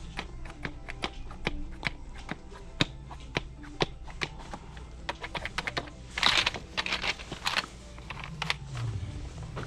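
Plastic toys being handled and picked through: sharp, irregular clicks and taps several times a second, with a denser rattle about six to seven and a half seconds in.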